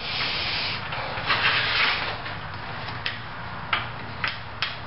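Hands working around a stopped wood lathe: a rustling scrape for about two seconds, then a few light clicks and knocks, with a low steady hum underneath.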